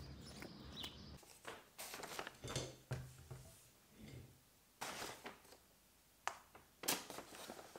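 Footsteps on a paved path with a bird chirping, then, after a cut, a paper takeaway bag rustling and crinkling as food is taken out of it and set down on a table, with a few knocks.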